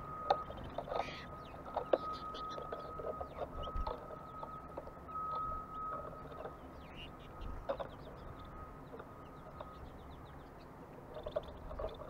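Small songbirds at a feeder giving short, high chirps and clicks, scattered irregularly. A steady high tone comes and goes beneath them and stops about ten seconds in, over a low rumble.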